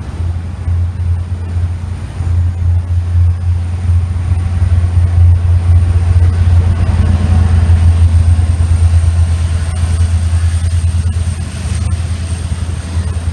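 Israel Railways diesel locomotive going by with its passenger coaches: a steady low engine drone that grows loudest around the middle as the locomotive passes close, with a thin high whine above it.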